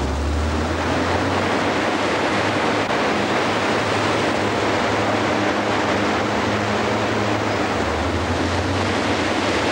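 Film-studio wind machine with cut-down fan blades, driven by a 50-horsepower motor, running at full speed: a steady rush of blown air with a low motor hum underneath.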